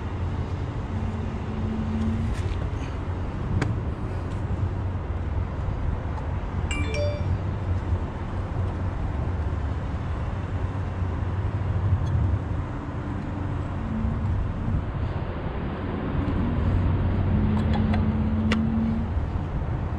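Steady low rumble of a truck engine running, with a hum that fades in and out. A brief metallic clink comes about seven seconds in.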